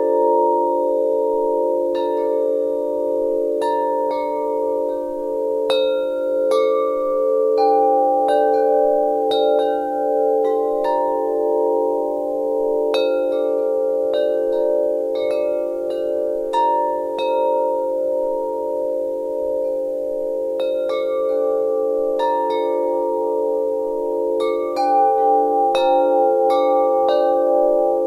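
Wind chimes ringing with irregular strikes, a few a second. Each note rings on, and the lower notes overlap into a continuous ringing bed.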